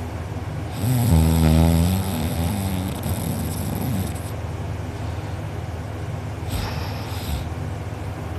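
A person snoring loudly in sleep. One long snore starts about a second in and fades over about three seconds, followed by a shorter breathy snore near the end.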